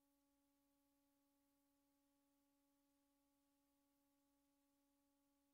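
Near silence: only a very faint steady hum with no change.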